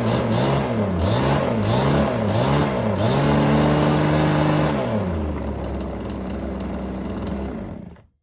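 Erman EM5201 chainsaw's small two-stroke engine revved up and down repeatedly, then held at high revs for about two seconds and dropped back to idle. It cuts out suddenly near the end.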